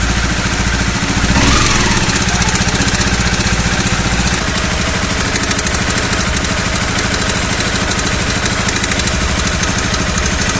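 Honda CBR250R single-cylinder engine idling, blipped briefly about a second and a half in, with a rapid tik-tik rattle from the top end: the sign of a failing cam chain tensioner, a common fault on this bike.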